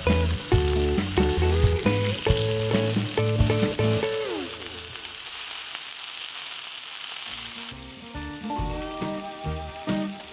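Thin strips of fatty beef short plate (kalbi) sizzling and frying on a hot non-stick griddle plate, over background music; the sizzle stops suddenly about three quarters of the way through, leaving only the music.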